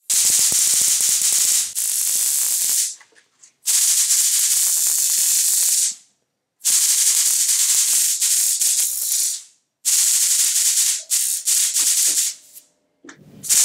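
High-voltage sparks crackling and buzzing as they arc from a homemade lightning sword's blade to a metal rod, driven by a cheap high-voltage boost transformer putting out around 40,000 volts. They come in bursts of two to three seconds with short silences between, four in a row and a fifth starting near the end.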